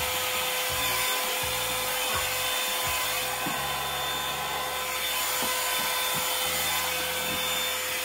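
Revlon One-Step hot air brush running: a steady rush of blown air with a constant motor whine.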